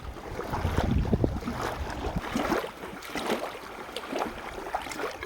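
Wind buffeting the microphone for about the first second and a half, then water splashing and lapping at the river's edge.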